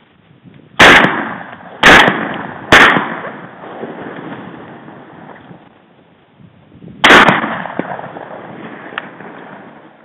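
Four shotgun shots: three in quick succession about a second apart, then a fourth about four seconds later, each trailing off in a long echo.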